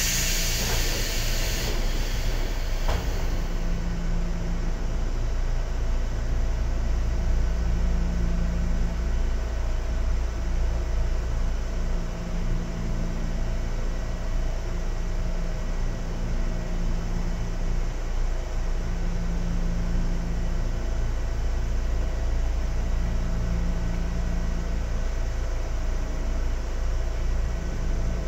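Sangi Railway 101-series electric railcar (KuMoHa 106) heard from inside: a steady rumble of wheels and motors with a few unchanging hum tones. A burst of hiss fills the first two seconds, and a single click comes about three seconds in.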